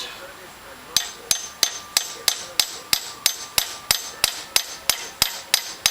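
Hammer tapping steadily on the end of a screwdriver bit held in an extension, light ringing metal-on-metal taps about three a second after a pause of about a second. The taps keep the bit seated in a seized crosshead screw in a motorcycle clutch case while it is turned.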